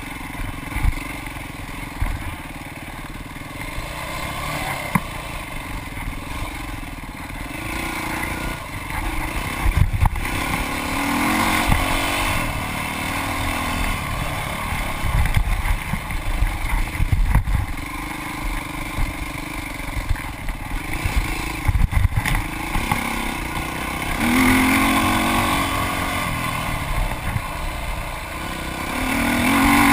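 Dirt bike engine running hard on a race trail, its pitch rising and falling as the rider works the throttle, with repeated knocks and clatter from the bike bouncing over rough ground. The revs climb strongly about a third of the way in, again past the three-quarter mark, and once more near the end.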